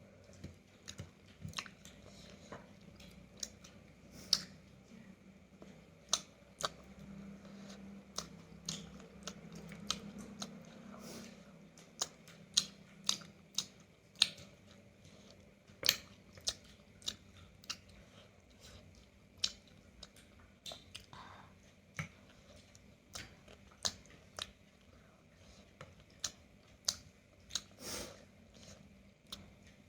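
A person eating roasted chicken close to the microphone: chewing and biting with irregular sharp mouth clicks and smacks, about one or two a second.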